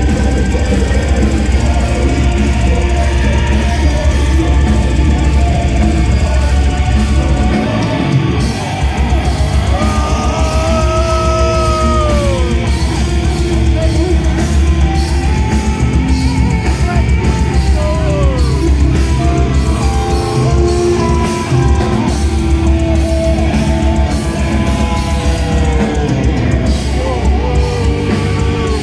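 Symphonic death metal band playing live through a loud PA, heard from the crowd: distorted guitars and heavy drums, with very fast drumming from about eight seconds in. A voice sings a long note that bends downward about ten seconds in.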